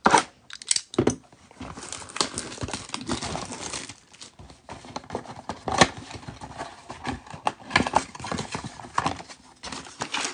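Shrink-wrap on a trading-card box being slit with a cutter and torn off, then the cardboard flaps opened and the packs slid out: crinkling plastic, rustling cardboard and many small taps, with a few sharp clicks at the start.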